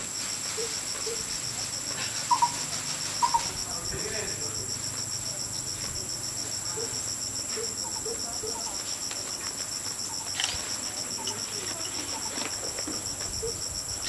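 Steady, high-pitched chorus of chirring insects with a fast, even pulse. A few short, lower notes are scattered through it; the loudest two come about two and three seconds in.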